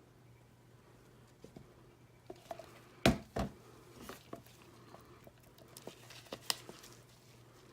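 Scattered small clicks and knocks from soapmaking containers and utensils being handled. The loudest are a double knock about three seconds in and a sharp click a little after six seconds, over a faint steady hum.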